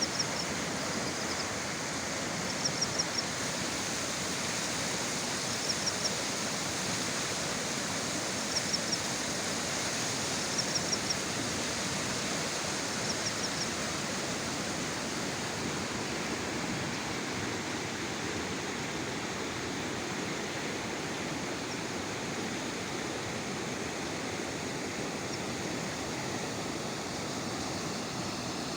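Swollen river in flood after heavy rain, its rushing water giving a steady, unbroken roar. Groups of three or four short high chirps repeat every few seconds over the first half.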